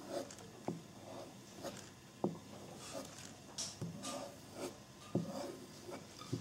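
Knife blade drawn stroke after stroke along a strop: soft rubbing swishes about one a second, with a few light knocks as the blade touches down.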